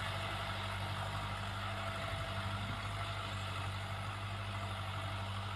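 Kubota tractor's diesel engine running steadily under load as it pulls a furrowing implement through the field, heard as an even, low hum.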